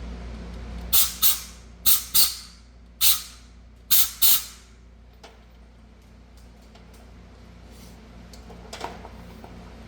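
Seven short hissing spray blasts, mostly in quick pairs, in the first half, cleaning out the brake caliper bracket's guide-pin bores before they are re-greased.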